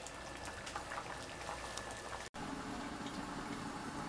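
Sarapatel, a thick pork offal stew, simmering in a pot with a soft, steady patter of popping bubbles. It breaks off for a moment about two seconds in, then carries on.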